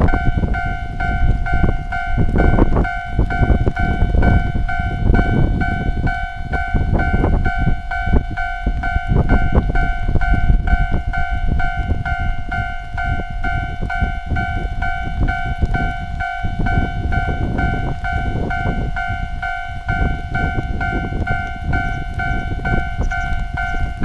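Japanese level-crossing warning bell ringing in an even, repeating electronic ding while the crossing is closed for an approaching train, over a loud low rumbling noise.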